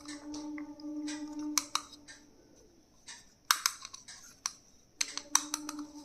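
Scattered sharp clicks and taps of plastic stationery items being handled and opened, over a steady hum that drops out for about three seconds in the middle.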